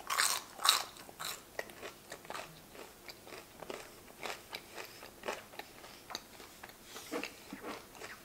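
A person biting into and chewing crunchy fried food: a few loud crunches in the first second or so, then steady wet chewing with small crackles.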